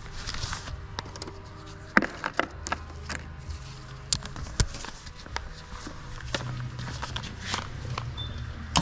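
Scattered sharp clicks and knocks of hand tools and metal parts being handled while an 8 mm bolt-on drum brake cover is unbolted, over a steady low hum.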